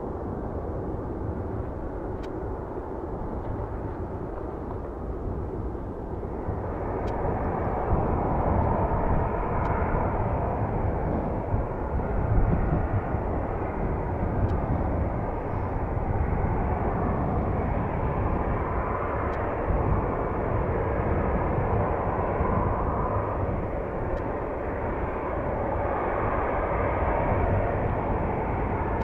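Heavy wind buffeting the microphone, with aircraft engines behind it. For the first six seconds or so a twin turboprop airliner climbs away, with a faint steady tone. Then the steady broad whoosh of a twin-engine widebody jet airliner's engines running on the ground takes over.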